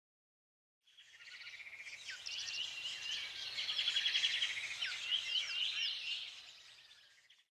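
Birdsong: several birds chirping and trilling at once, with rapid trills and short sweeping whistles. It fades in about a second in and fades out near the end.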